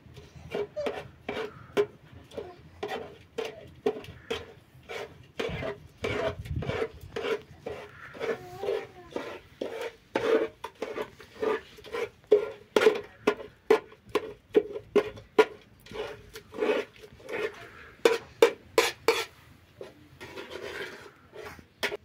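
Repeated metallic knocks and scrapes, about two a second, each with a short ring, like a utensil working in a pot; they grow louder about halfway through.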